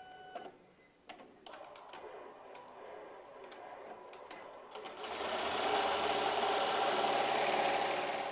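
Multi-needle embroidery machine starting a design: a short beep and a few clicks, then stitching that picks up speed and runs loud and steady from about five seconds in, sewing the first-colour outline of the design.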